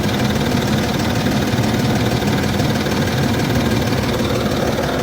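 Land Rover Discovery 3's 2.7 TDV6 V6 diesel idling steadily, hot, with a rapid knock running through the engine note. The knocking is what the engine does once it is warm.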